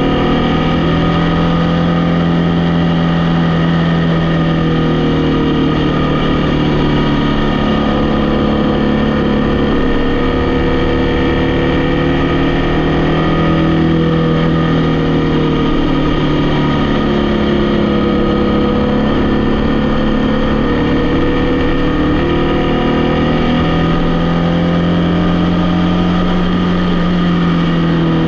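A vehicle's engine running steadily while driving along a road, its pitch drifting slowly up and down as the revs change.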